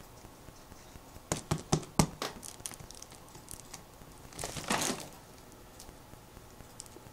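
Homemade tube of plastic drink bottles taped together, handled by hand: a quick run of sharp plastic clicks a second or so in, then a longer crinkling rustle near the middle as the tube is shifted.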